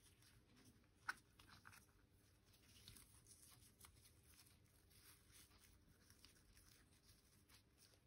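Near silence with faint, scattered rustles of ribbon being handled and tied into a bow, and one small tick about a second in.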